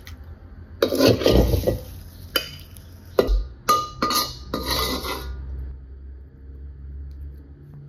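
Metal ladle scraping and clinking against a wok and a ceramic plate as stir-fried shrimp are served, a quick run of scrapes and sharp clinks over the first five seconds, then quieter.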